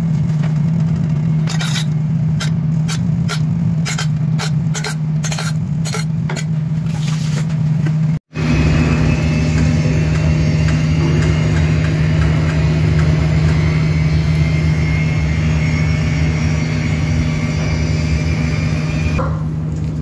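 Steady low mechanical hum of a running machine, with a series of light, sharp taps through the first several seconds. The sound drops out for an instant about eight seconds in, then the hum resumes with a steady hiss over it.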